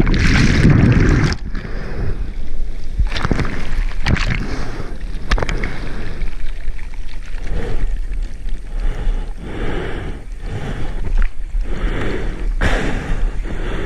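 Surf water churning and splashing right at the microphone during a surfing wipeout: a muffled, heavy underwater rumble for about the first second, then whitewater foam sloshing and splashing in irregular surges.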